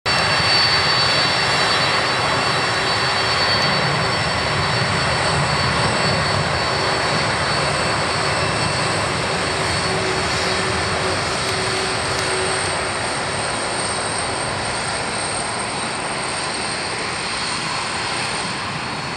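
Boeing 747-400ER's four General Electric jet engines running at taxi power as the airliner passes close by. A steady rushing noise carries high-pitched whines and fades slowly as the aircraft moves on.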